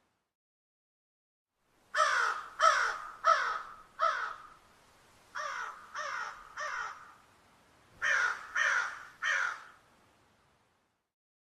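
Crow cawing in three runs of harsh caws, each falling slightly in pitch: four loud caws starting about two seconds in, then three softer caws, then three more.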